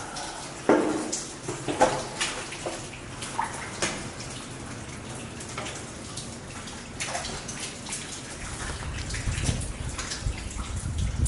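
Rainwater dripping and splashing in a leaking, derelict building: irregular taps and splashes, two louder ones early on, with a low rumble building near the end.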